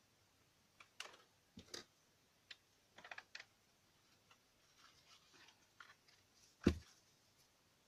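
Paper card and a glue stick being handled on a cutting mat: a scattering of small clicks and taps, then one louder thump near the end.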